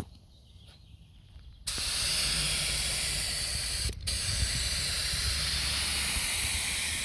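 Compressed-air spray gun spraying clear coat: a steady loud hiss starts suddenly about one and a half seconds in, stops for an instant about 4 seconds in as the trigger is let off, then carries on.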